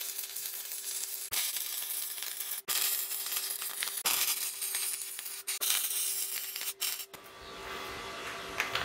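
Stick (shielded metal arc) welding: the electrode's arc crackling and sizzling as a bolt is welded onto a steel plate, with several very brief breaks. It stops about seven seconds in.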